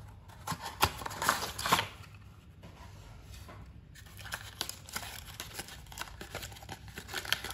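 Cardboard toy box with a clear plastic window being opened by hand, its inner cardboard tray slid out of the sleeve: rustling, crinkling and small clicks, busiest in the first two seconds, then lighter scattered handling ticks.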